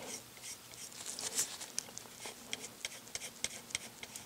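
Faint, irregular small clicks and scrapes from a plastic model kit being handled while Milliput putty is worked into its seams.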